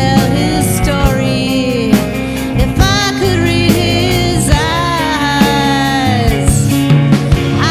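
Rock ballad played by a band: a steady drum beat and bass under a lead melody that slides and wavers in pitch.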